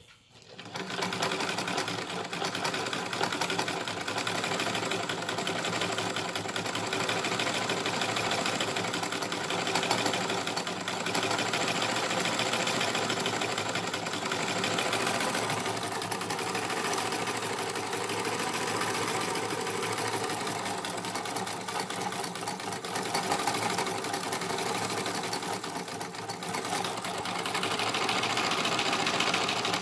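1950 Vickers sewing machine running steadily at speed, driving its bobbin winder to fill a bobbin with thread. It starts up about half a second in.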